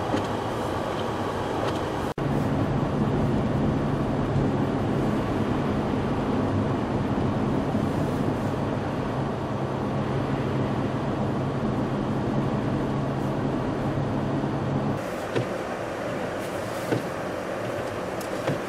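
A vehicle's engine runs steadily with a low hum under a strong rush of wind noise. The sound breaks off abruptly about two seconds in, and shifts to a thinner rush with a few knocks near the end.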